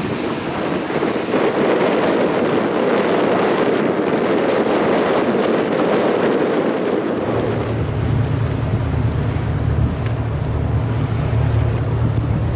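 Water rushing and splashing in the wake of a high-speed twin-hulled passenger ferry running close past, with wind buffeting the microphone. About seven seconds in the rushing gives way to a steady low rumble.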